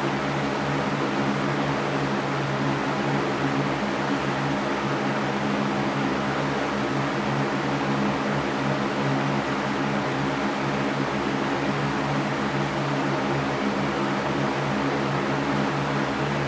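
Electric fan running steadily: an even rushing of air from the blades over a low motor hum, with no change.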